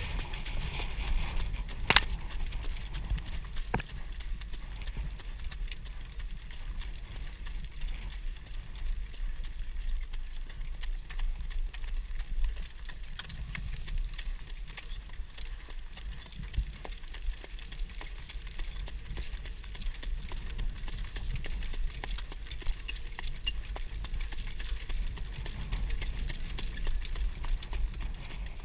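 A Standardbred harness horse's hooves clip-clopping on a dirt racetrack as it pulls a sulky, with wind rumbling over the microphone throughout. A sharp click about two seconds in.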